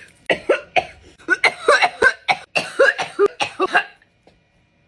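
A man coughing in a rapid fit of about fifteen coughs that stops about four seconds in. It is the reaction to a deep hit from a disposable vape held until the device blinks.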